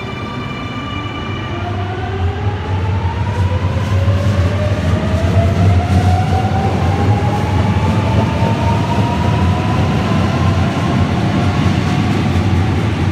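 Sydney double-deck electric train pulling out and accelerating. Its traction motors give a whine that rises steadily in pitch over a deep, steady rumble that grows louder over the first few seconds.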